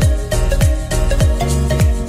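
Background music with a steady beat and deep low thumps.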